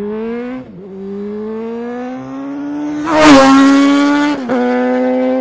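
Small motorcycle engine accelerating through the gears. The pitch climbs, drops at a gear change less than a second in, climbs again, and drops at another change near the end. It is loudest, with a burst of hiss, about three seconds in.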